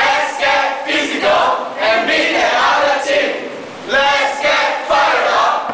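A cheerleading squad shouting a chant in unison, in short loud shouts about two a second.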